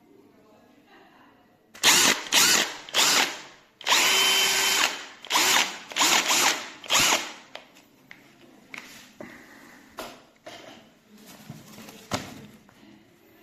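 Bosch GSB 18V-55 cordless combi drill's motor spun up in short trigger pulls: a series of half-second whirs, one held for about a second, then only faint clicks in the last few seconds.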